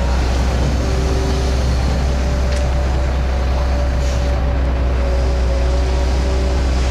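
Cat M318D wheeled excavator's diesel engine running steadily under working load, with a steady hydraulic whine over a deep, even drone.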